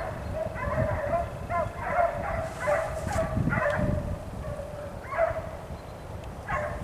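Hunting hounds baying in the distance while chasing a hare, a run of overlapping yelping cries for about four seconds, then two single cries near the end. Wind rumbles on the microphone underneath.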